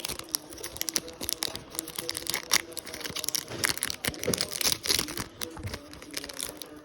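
Foil Pokémon booster pack wrapper crinkling irregularly as it is opened and the cards are pulled out.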